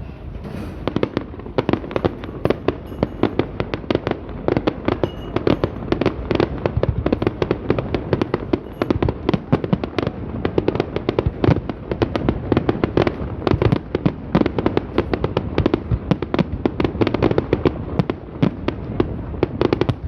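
Fireworks display: a dense, rapid barrage of cracks and bangs, many per second, building up about a second in and keeping on without a break.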